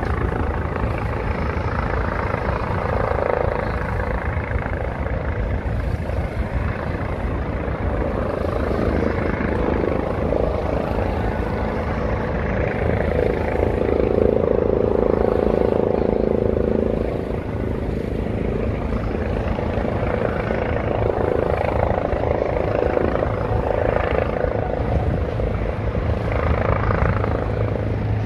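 Helicopter flying at a distance: a steady rotor thrum and turbine noise, growing louder for a few seconds around the middle.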